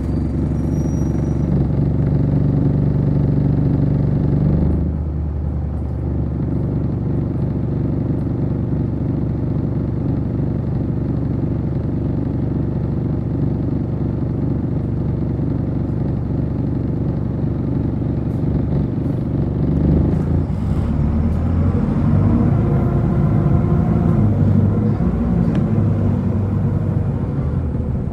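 City bus engine heard from inside the cabin: it runs steadily while the bus stands, drops to a lower note about five seconds in, then revs up as the bus pulls away about twenty seconds in.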